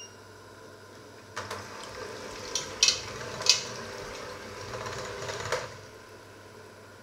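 Electric hand mixer running for about four seconds, its beaters whisking a thin batter in a stainless steel pot, with a few sharp clicks as the beaters knock the pot; it starts and stops abruptly.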